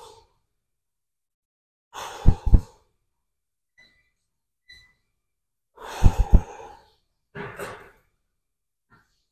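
A man exhaling forcefully during a set of leg exercise. There are heavy blowing breaths about two seconds in and about six seconds in, each with a couple of hard puffs, and a lighter breath out shortly after the second.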